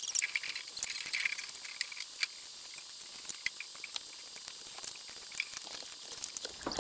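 Battered snakehead pieces deep-frying in hot oil: a steady sizzle peppered with many small crackles and pops.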